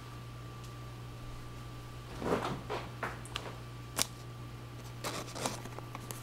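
Plastic card sleeves and a trading card being handled as the card is slid into a sleeve: a string of short rustles and light clicks beginning about two seconds in.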